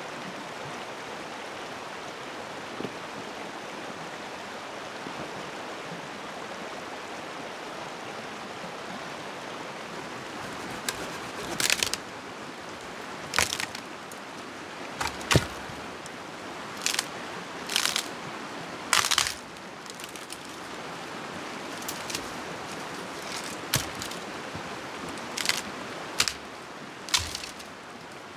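Steady rush of a flowing stream. From about ten seconds in, a dozen or so short, sharp noises come at irregular intervals over it.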